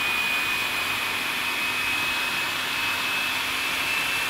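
Electric food processor running steadily, chopping garlic and culantro into a paste, its motor giving a high, steady whine.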